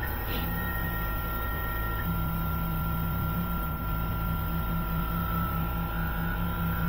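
Tormach PCNC 440 CNC mill running its toolpath, a 1/32-inch end mill cutting under flood coolant. A steady high spindle whine over a low hum that sets in within the first second; a second, higher tone drops out about two seconds in.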